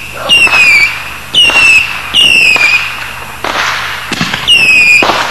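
Fireworks firing in quick succession: sharp pops, each followed by a short high whistle that drops slightly in pitch, four times, with a few separate bangs between them.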